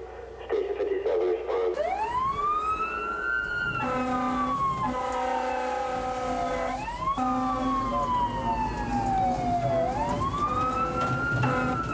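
A fire truck's mechanical siren winds up and coasts down three times, each rise quick and each fall slow. From about four seconds in, long steady blasts of a low horn sound over it.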